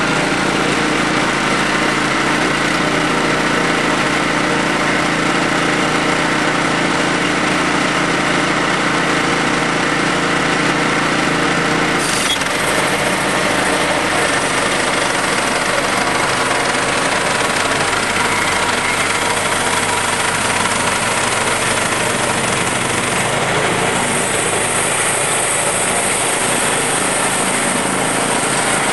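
Timber King 1200 portable band sawmill running steadily under load, its engine driving the band blade through a log as the saw head travels along it. The engine's tone shifts about twelve seconds in, and a brighter hiss joins near the end.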